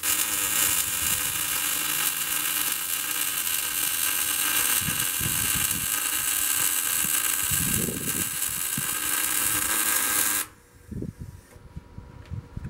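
Arc welder laying a bead on steel angle-iron rails inside a steel smoker chamber: a steady hiss and crackle of the arc that stops abruptly about ten and a half seconds in.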